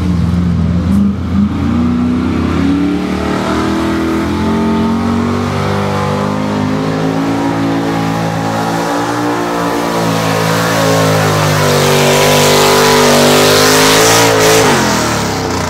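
Small-block Chevy V8 in a two-wheel-drive pickup running at full throttle while pulling a weight-transfer sled. The revs climb and the sound grows louder toward the end, then drop off sharply near the end as the pull ends.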